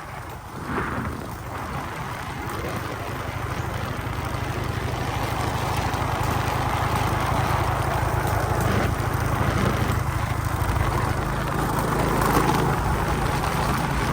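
Motorcycle engine running with road noise while riding, getting louder over the first several seconds and then holding steady.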